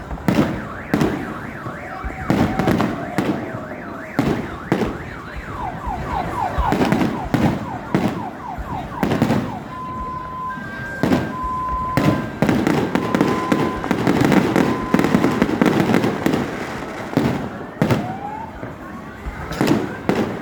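New Year fireworks bursting in many sharp bangs over a continuous rumble of explosions. Through them a car alarm cycles its tones: a run of quick rising chirps about six seconds in, then steady beeps alternating between two pitches, then rising whoops near the end.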